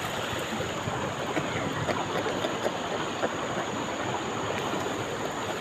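Steady rush of flowing river water, an even noise with no clear events.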